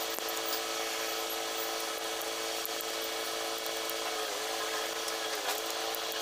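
A power tool's electric motor running steadily, its pitch sagging briefly about three times in the second half.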